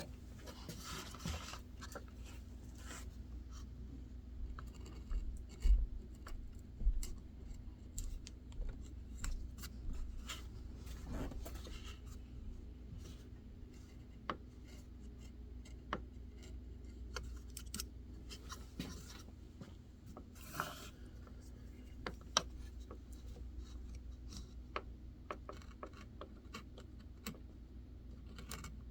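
Hand carving tool cutting into white birch wood: an irregular run of short scraping slices and small clicks, over a low steady hum.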